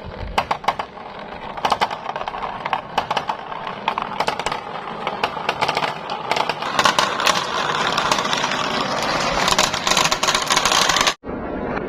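Marbles rolling and clattering down a marble-run track: a steady rolling rumble with rapid clicks and knocks that grow denser and louder. The sound cuts off abruptly about eleven seconds in, and a steadier hiss follows.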